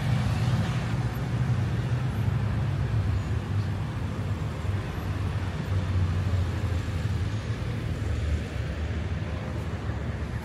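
Steady low rolling rumble of inline skate wheels on asphalt, with city street traffic around it.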